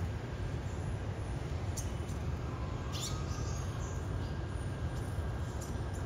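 A few short, high bird chirps, one falling in pitch, over a steady low rumble of background noise.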